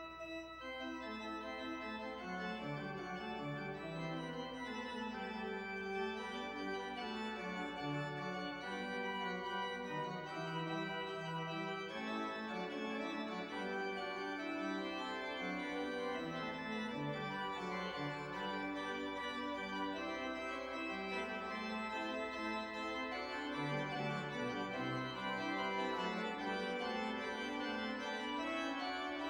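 Pipe organ playing several notes held at once, with the inner parts and bass moving in steady succession. It grows slightly louder near the end.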